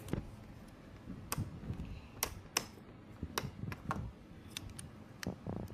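Small hard parts being handled, giving irregular sharp clicks and taps, about a dozen scattered through.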